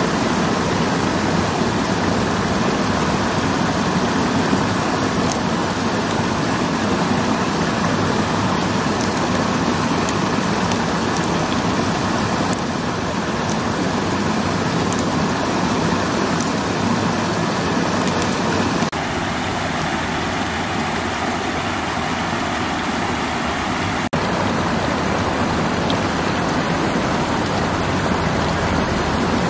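Steady rush of flowing stream water, a continuous hiss that changes abruptly in tone a few times.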